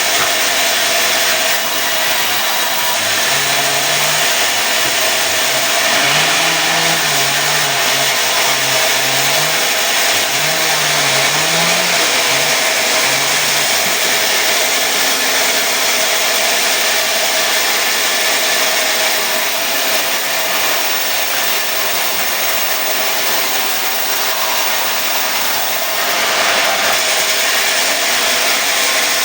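Sawmill saw running loud and steady, cutting mahogany into boards, with a low wavering engine drone under it in the first half.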